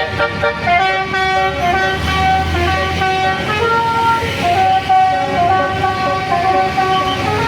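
Basuri telolet bus horn playing a fast melody, its notes changing every fraction of a second, over the low running of the bus engine.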